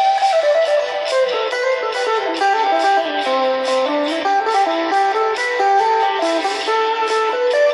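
Background music: a guitar picking a busy melody of quick plucked notes.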